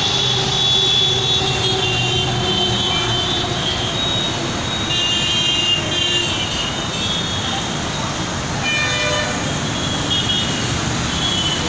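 Dense city road traffic running steadily, with vehicle horns honking again and again, short high-pitched toots scattered throughout and a longer, lower horn about nine seconds in.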